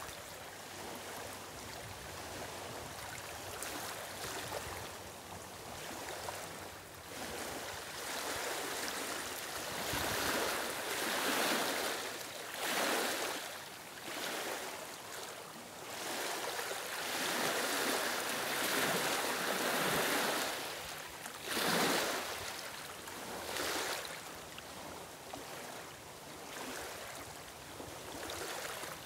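Small lake waves lapping and washing over a stony shore among reeds. The wash comes in irregular louder surges every few seconds.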